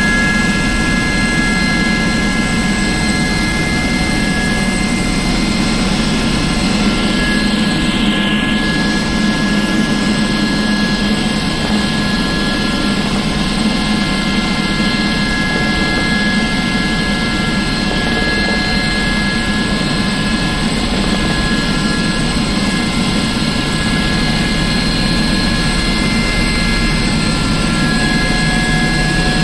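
Aérospatiale SA 341F Gazelle helicopter in steady flight, heard from inside the cabin: the Turbomeca Astazou turboshaft's steady whine, several high whistling tones held level, over the low, even rumble of the rotor.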